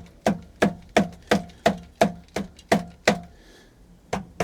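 Pool pump's lid being locked back in place with a rapid run of sharp, regular knocks, about three a second, with a short break a little after three seconds in.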